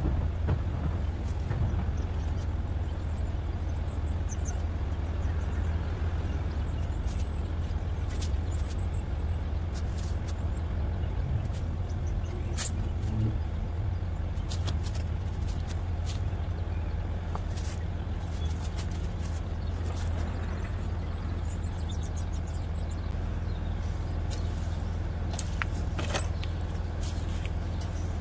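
Goodman heat pump's outdoor unit running with its Copeland scroll compressor: a steady low hum with no change in level. Faint scattered high ticks sit above it.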